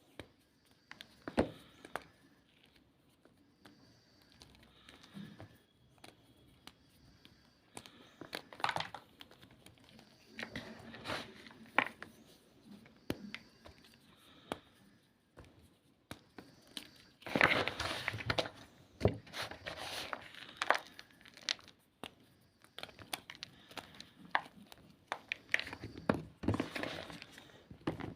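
Homemade gym chalk being crushed: irregular crunches and crackles, sparse at first and coming thicker in the second half.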